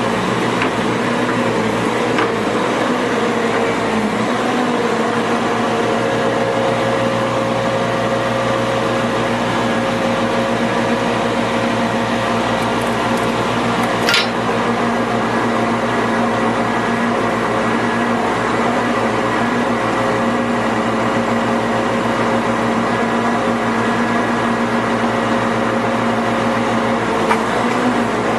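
The Tamrock Pantera 1500 drill rig's diesel engine running steadily at a constant speed. A brief sharp click comes about halfway through.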